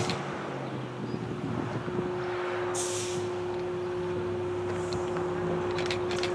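Locomotive sounds in a rail yard: a low hum, then a steady held tone that comes in about two seconds in, with a short hiss of air or steam near three seconds and a few light clicks near the end.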